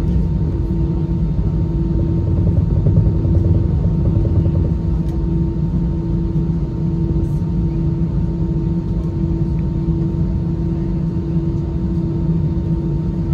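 Steady cabin hum inside an Airbus A320-214 on the ground, a low rumble carrying several constant tones, swelling slightly a few seconds in.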